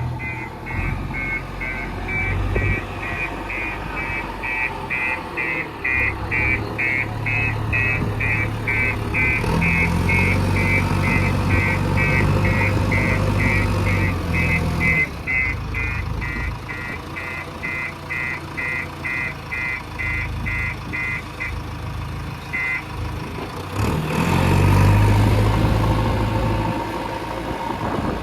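Diesel engine of a JCB 3DX backhoe loader working, rising in load twice. Over it, a rapid electronic beeping, about three beeps a second, stops about three-quarters of the way through.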